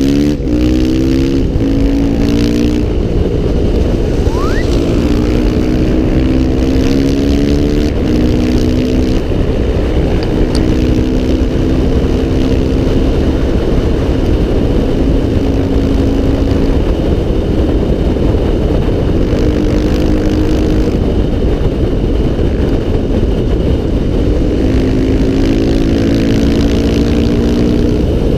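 Dirt bike engine heard from the rider's helmet at road speed, its pitch climbing under acceleration, holding steady, then dropping and climbing again several times as throttle and gears change. A heavy steady rush of wind runs underneath it.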